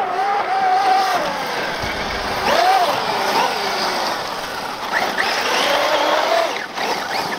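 Brushless electric motor of a Traxxas RC truck whining, its pitch rising and falling over and over as the throttle is worked, over the hiss of tires sliding through loose desert dirt.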